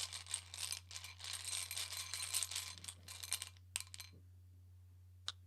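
Small tokens rattling and clinking together as they are stirred or shaken for a few seconds, then a few separate clicks, with one last click near the end.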